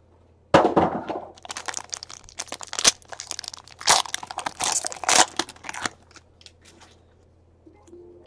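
Foil wrapper of a 2017 Topps Tier One baseball card pack being torn open and crinkled by hand: a burst of crackling and crunching from about half a second in that dies away at about six seconds.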